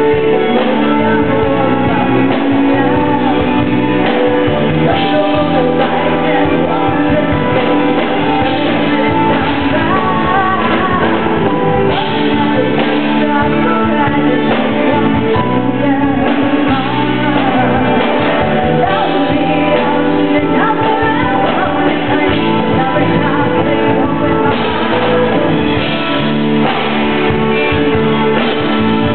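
Live music: a singer performing a song with band accompaniment, guitar among the instruments, playing on without a break.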